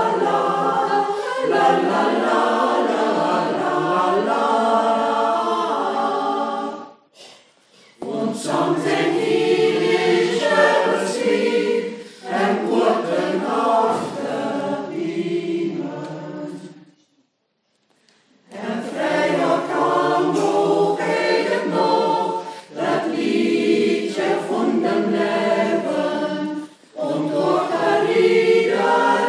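Mixed choir of men and women singing unaccompanied in Transylvanian Saxon dialect. The singing comes in phrases, broken by two short silent pauses, about a quarter of the way in and just past halfway.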